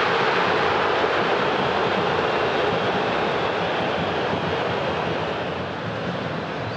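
Large stadium crowd roar, swelling around the start as a goalmouth chance plays out, then slowly dying down.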